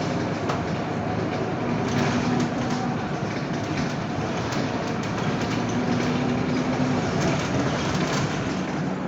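Inside the cabin of a Scania K230UB city bus on the move: its five-cylinder diesel engine running under steady road and tyre noise, with light rattles from the bus's fittings. A low hum comes up briefly twice.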